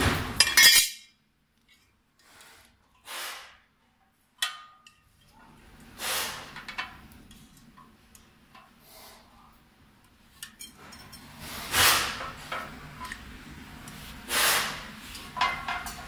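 Steel stand-frame parts being handled and fitted together by hand: scattered clinks, knocks and short scrapes of metal, loudest in the first second and around twelve seconds in.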